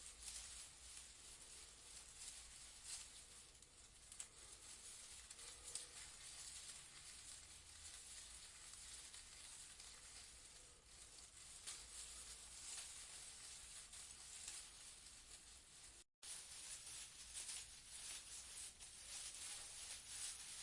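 Leaves rustling in a breeze: a faint, airy rustle that swells and fades unevenly, cutting out for a moment about sixteen seconds in.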